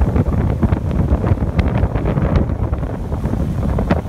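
Wind buffeting the phone's microphone on a speedboat under way, over the boat's engine and the rush of its churning wake.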